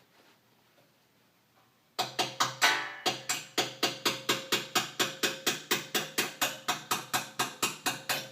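A metal axle rod used as a makeshift hammer, rapidly tapping a cotter pin into the hole of a wheel axle rod. The metal-on-metal strikes come about five a second, each with a short ring, starting about two seconds in.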